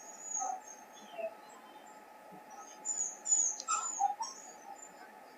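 Birds chirping: a short high chirp near the start, then a quick run of downward-sliding chirps about three seconds in, over a faint steady background hiss.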